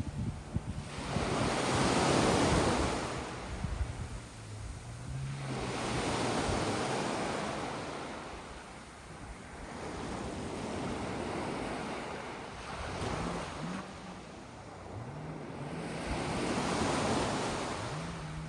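Sea waves breaking and washing up a shore of sand and small pebbles, swelling and falling away about every four to five seconds. Wind buffets the microphone during the first couple of seconds.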